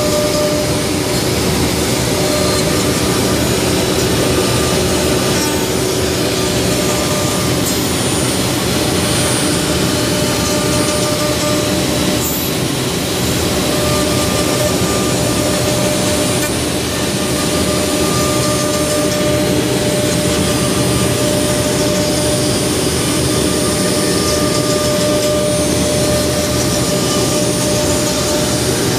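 CNC router's high-speed spindle carving a block of wood with a small carving bit: a steady whine over continuous cutting noise.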